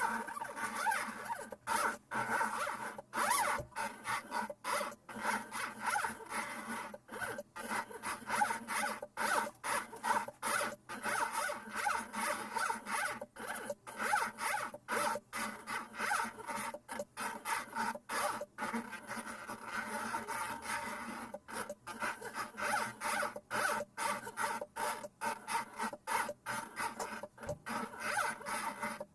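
CNC plotter's NEMA 17 stepper motors driving the axes through GT2 belts, whining in short moves with brief pauses between them.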